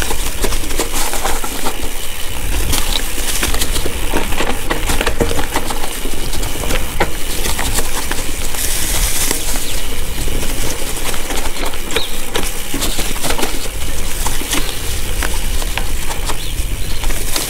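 Mountain bike rattling over rough singletrack on a descent, a constant patter of sharp clicks from the bike and the stones under the tyres, over a steady low rumble of wind on the microphone.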